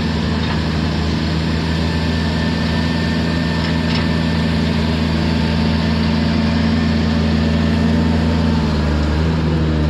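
Heavy equipment engine idling steadily, with a low even drone whose pitch shifts slightly near the end.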